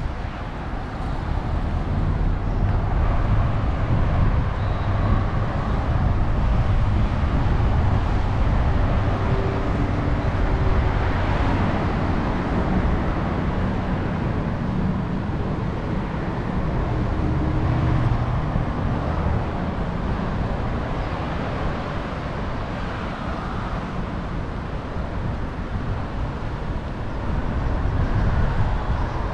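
Street traffic: a steady rumble of cars and other vehicles passing, with engine hum rising and fading as they go by.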